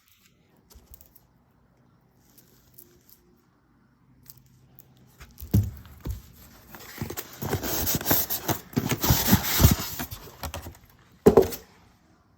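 Packaging being handled during an unboxing: rustling, crinkling and rattling for a few seconds, with knocks before it and a sharp knock near the end.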